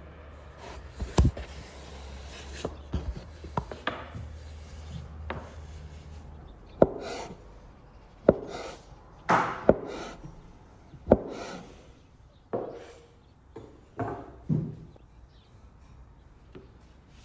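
A large cleaver chopping through a rolled-up sheet of noodle dough onto a wooden board. Each cut lands as a separate knock on the wood, roughly one every second or so, with softer rustling from the dough being handled between the cuts.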